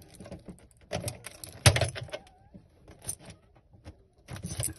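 A metal key clicking and scraping against the underside of a Thetford motorhome fridge shelf as it is worked into the shelf's release slot. There are irregular small clicks, with the sharpest about a second and a half in.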